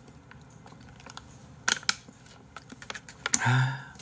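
Scattered sharp clicks and taps, two louder ones just under two seconds in, then a short low vocal sound near the end.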